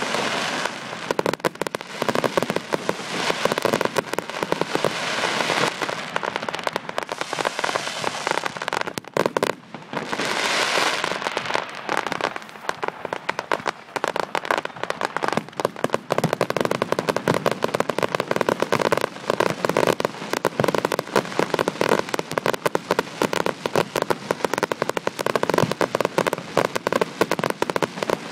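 Fireworks display: a dense, continuous run of rapid crackling bangs, with a brief lull about nine seconds in.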